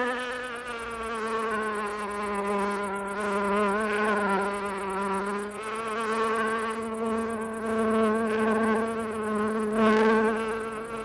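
Water beetle in flight: a steady, continuous wing buzz, a low hum with many overtones that wavers slightly in pitch.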